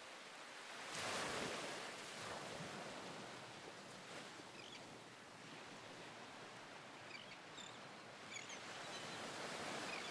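Faint wash of surf and wind, swelling briefly about a second in, with scattered short high chirps in the second half.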